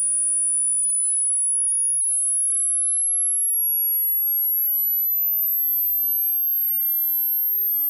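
Hearing-test tone: a single pure, very high-pitched sine tone gliding slowly and steadily upward at an even loudness. It is a frequency sweep for finding the upper limit of a listener's hearing.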